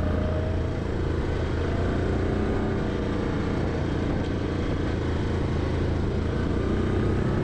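Yamaha Grizzly 700 ATV's single-cylinder engine running steadily at an even cruising speed on a gravel trail, with tyre noise from the gravel underneath.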